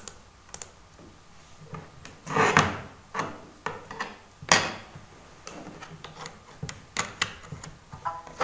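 A couple of sharp computer mouse clicks, then scattered knocks and rubbing handling sounds at a desk. The loudest is a sharp knock about four and a half seconds in.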